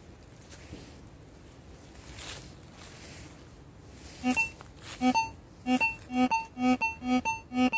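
Metal detector giving a low, buzzy target tone in short repeated beeps, about two a second, as the search coil is swept back and forth over a buried target. The beeps start a little past halfway; before that there is only faint rustling of the coil through leaves and grass.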